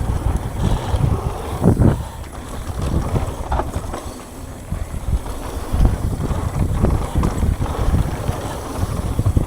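Mountain bike descending a bumpy dirt trail at speed: wind buffeting the microphone over the rumble of the tyres, with irregular knocks and rattles as the bike hits bumps.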